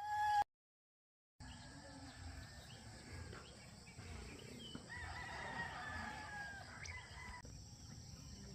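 A rooster crowing: one long call about two seconds long near the middle, over steady outdoor background noise. A short tone sounds at the very start, before a moment of silence.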